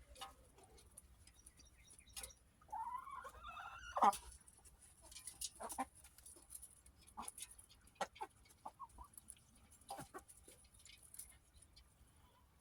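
Hens feeding from a bowl, clucking softly, with one drawn-out squawk about three seconds in. Scattered sharp taps throughout, typical of beaks pecking at the food.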